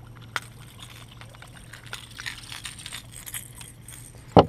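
Small clicks and rattles of a treble-hooked topwater lure being worked free of a bass's mouth, with a sharp click about half a second in and a loud knock near the end, over a low steady hum.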